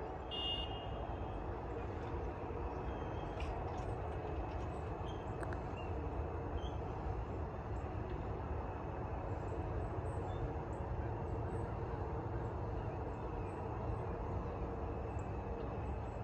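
Low, steady rumble of an approaching train heard from a distance, growing slightly louder, ahead of its arrival.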